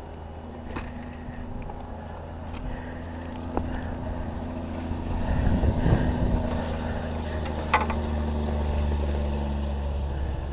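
A motor's steady low drone runs throughout. A louder rustling swell comes around the middle, with a few sharp clicks of handling, the sharpest near the end.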